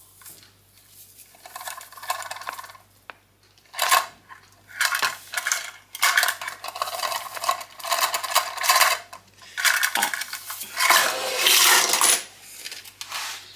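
Salt being shaken out of a cylindrical salt canister into a measuring spoon, in a series of rattling shakes that come and go, the longest runs in the second half.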